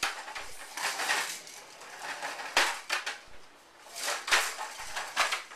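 Plastic toy baby walker pushed along a tile floor: its hard plastic wheels rattle and clatter in irregular bouts as it is shoved and knocked around.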